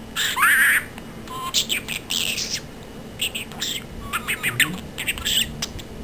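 Pet budgerigar chattering in about five short bursts of warbles and squawks, the loudest in the first second with a quick rising glide.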